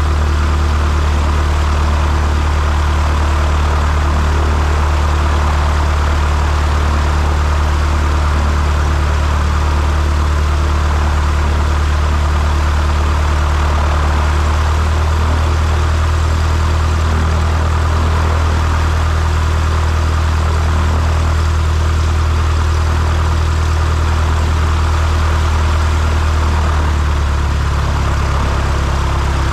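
An engine running at a steady speed: a loud, even low drone with a steady hum that shifts slightly near the end.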